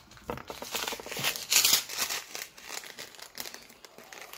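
Plastic packet of sprinkles crinkling as it is handled and opened, a run of irregular crackles with a louder burst about one and a half seconds in.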